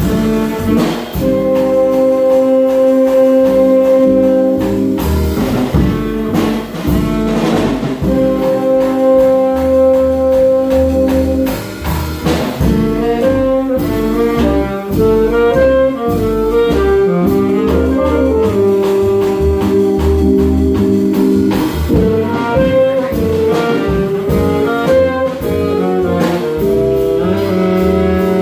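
Live jazz quintet: tenor and alto saxophones play a melody together, holding long notes in harmony and then moving in quicker lines about twelve seconds in, over upright bass and a drum kit with regular cymbal and drum strikes.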